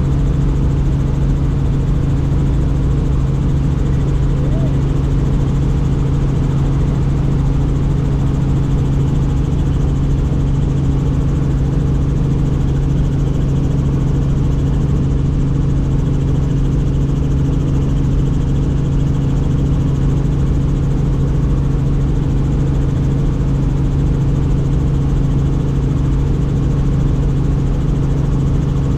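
Helicopter in flight heard from on board: a loud, unchanging drone of turbine and rotors, with a strong low hum and its overtones.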